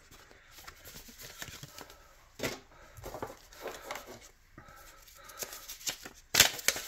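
Paper and card inserts being handled: soft rustling and light taps, with a louder cluster of sharp rustles and knocks near the end.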